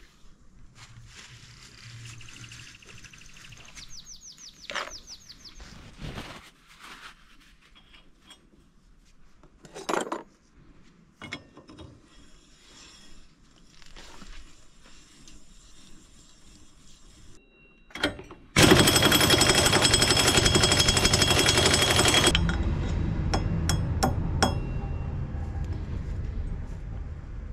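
Impact wrench hammering on the rear wheel hub's axle nut: a loud run of very rapid blows starts about two-thirds of the way in and eases to a lighter rattle after about four seconds. Before it come quiet clinks and clunks of tools and parts being handled.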